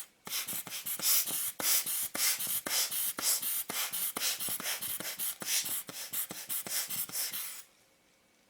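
Hand air blower puffing air in quick repeated bursts, about two or three a second, to blow small dust fragments off a lens element; the puffing stops about a second before the end.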